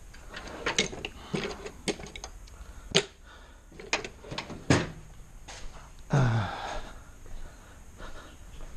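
Scattered clicks and knocks of car interior parts being handled during disassembly, a few of them louder, around three, five and six seconds in.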